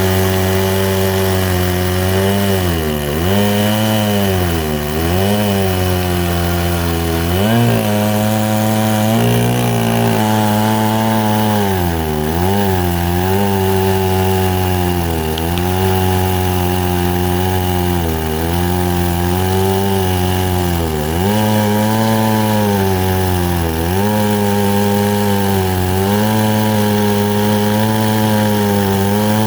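Two-stroke Stihl 070-clone chainsaw running at full throttle in an Alaskan chainsaw mill, cutting through a mesquite log. The engine note sags and recovers again and again as the cut loads it. The saw is running really rich.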